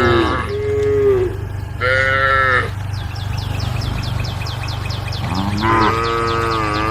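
Cattle mooing: four long, drawn-out moos, with a pause in the middle. A fast, high ticking call, about six a second, runs through the latter half over a steady low hum.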